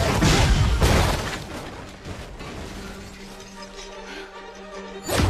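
Film sound effects of a superhero energy blast: a loud blast and crash with music under it for about the first second, dying away to a low steady hum, then another heavy impact right at the end.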